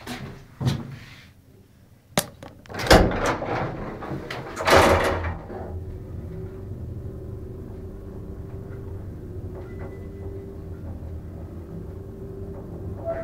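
Elevator with stainless-steel sliding doors: a couple of sharp clicks, then the doors rattle shut for about two seconds. After that the car runs with a steady low hum.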